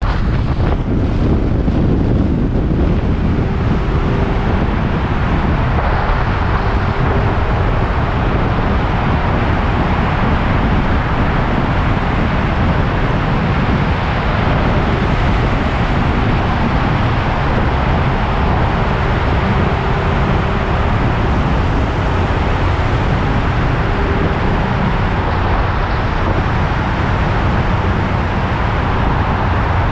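KTM Duke 390 single-cylinder motorcycle engine running steadily under way, with heavy wind rushing over the microphone.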